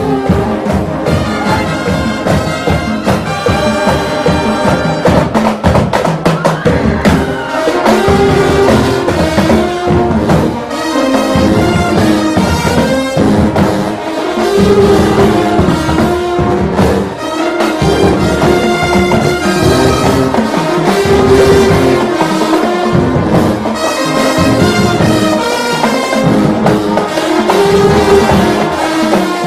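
Marching band playing: a large brass section of trumpets, trombones and sousaphones sounding sustained chords and melody over steady marching drums.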